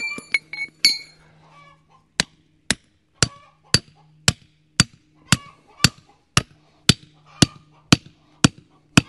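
Hammer blows driving a stake into the ground, a steady run of about a dozen sharp strikes just under two a second, starting about two seconds in. Each strike rings briefly.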